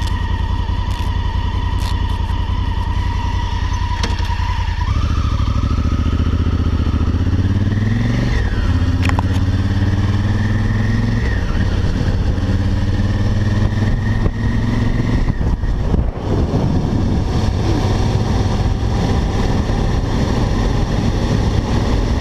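Honda Africa Twin adventure motorcycle engine idling, then pulling away about five seconds in and accelerating up through several gears, the pitch rising and dropping back at each shift, before running steadily at road speed.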